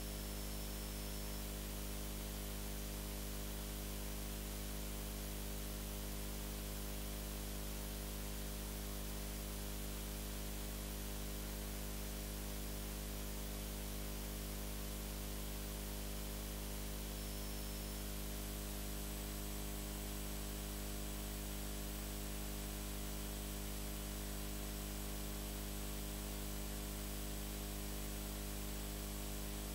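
Steady electrical hiss with a low mains hum, unchanging throughout, with no music or other sound. A faint high whine joins about eighteen seconds in.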